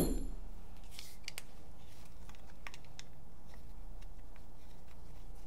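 Faint, scattered light clicks and taps of an Allen key and small metal regulator parts being handled and turned.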